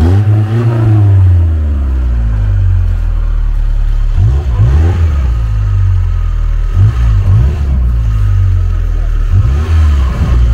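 Niva 4x4 engine being revved again and again, the revs rising and falling in four surges over a steady low running note.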